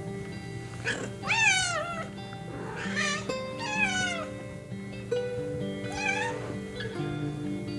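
A domestic cat meowing about four times, with pitch rising then falling in each call; the loudest comes about one and a half seconds in. Background music with sustained notes plays underneath.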